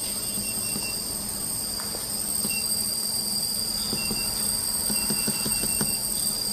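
A laser welding machine runs with a steady high-pitched whine and low hum. Short electronic beeps come in groups, once near the start and then a quick run of them around four to six seconds in, as keys are pressed to set the welding parameters.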